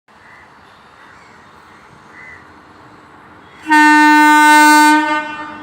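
Train horn sounding one loud, steady blast of about a second and a half, starting about two-thirds of the way in and fading out, over faint steady background noise.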